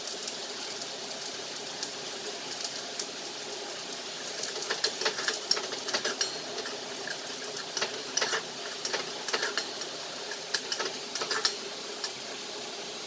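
Chopped garlic sizzling in hot oil in a pan. From about four seconds in, a spatula stirs it, with irregular clicks and scrapes against the pan.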